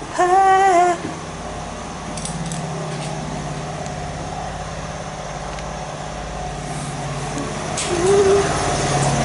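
Steady hum of an ET4A electric train carriage, with a few light knocks, growing louder near the end.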